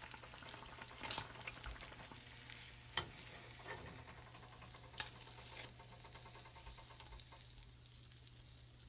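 Onion bajji deep-frying in hot oil: a soft steady sizzle with scattered sharp pops and a few clicks of a utensil, fading gradually toward the end.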